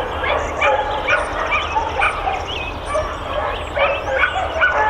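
Many dogs at a boarding kennel barking and yipping together: a continuous chorus of short, overlapping calls at many different pitches, with no pause.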